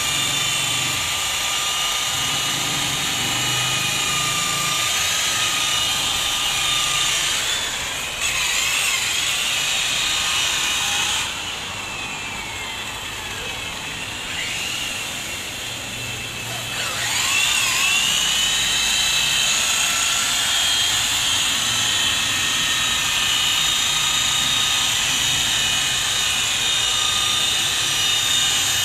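Corded rotary polisher whining steadily as its foam pad buffs car paint during paint correction. About 11 seconds in it drops lower and quieter, and about 17 seconds in it spins back up with a rising whine.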